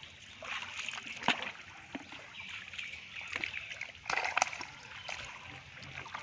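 Legs and hands squelching and sloshing through thick wet mud in shallow water, with irregular splats: a sharp one about a second in and a cluster around four seconds in.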